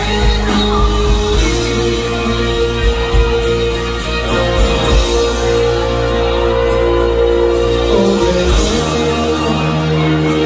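A live rock band playing, with electric guitars over a low bass line; the lowest notes drop out about nine seconds in.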